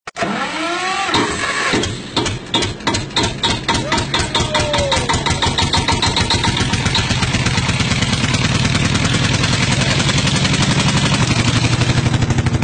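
Banknotes being flicked through rapidly by hand in a count, a regular clicking that starts slowly and speeds up into a fast, even patter. A few sweeping tones sound in the first two seconds.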